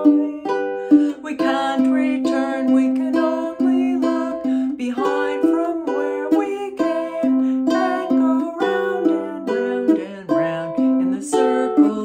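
Ukulele played through a steady run of notes, with a woman singing along.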